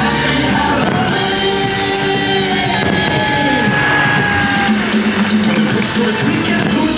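Loud Halloween show soundtrack music, held notes with sliding tones between, in a stretch with no clear words between the show's songs.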